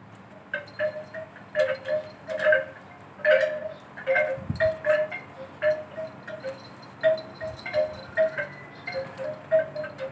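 Wind chime ringing: a few clear tones struck irregularly, one after another, throughout.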